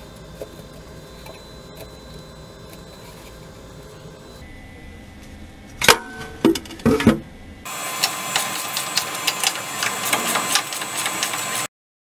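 Mechanical work noise under a truck: several loud knocks about six seconds in, then a few seconds of dense, rapid clicking that cuts off suddenly.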